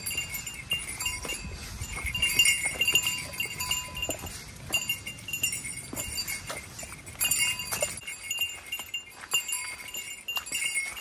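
A bear bell jingling on and off with the hiker's steps, the small brass bell worn to warn bears off the trail.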